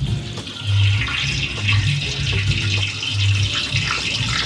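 Hot cooking oil sizzling steadily as a whole boiled pig's head is lowered into a deep pot for deep-frying. The sizzle swells about half a second in and keeps going. A low pulse repeats underneath.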